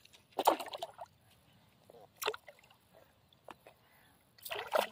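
Hooked fish thrashing and splashing at the water surface on a fishing line: a splash about half a second in, a short sharp one a little after two seconds, and another near the end.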